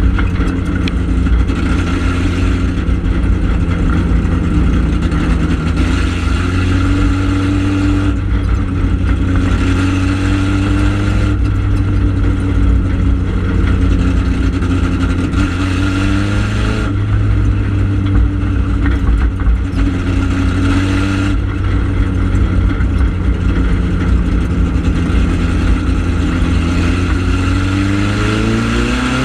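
Four-cylinder ministock dirt-track race car engine heard from inside the cockpit, running hard at racing speed. It rises in pitch as the car accelerates and drops back as the driver lifts, over and over, with a steep climb near the end.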